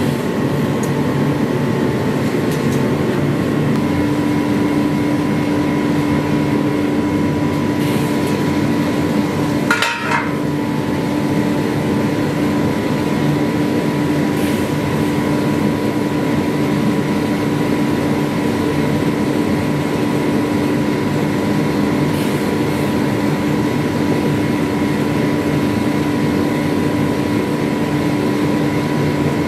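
A machine running steadily with a constant hum and whine, a lower tone joining about four seconds in, broken by a brief sharp knock about ten seconds in.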